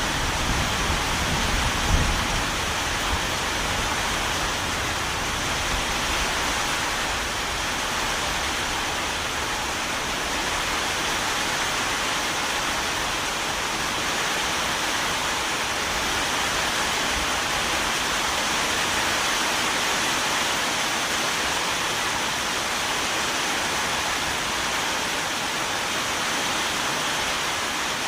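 Steady rain falling, an even hiss of many drops. A brief low rumble about two seconds in.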